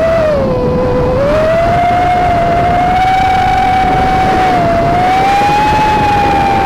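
Vortex Pro FPV racing quadcopter's brushless motors and propellers whining as picked up by its onboard camera, over a rough rush of wind noise. The pitch drops about half a second in, climbs back after about a second, dips briefly near five seconds and then rises slowly as the throttle changes.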